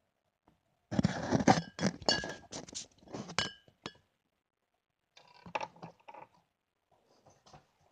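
Hard objects clattering and clinking close to the microphone as the phone is handled and propped up, a dense run of knocks, some with a short ringing tone, for about three seconds, then a few quieter clicks.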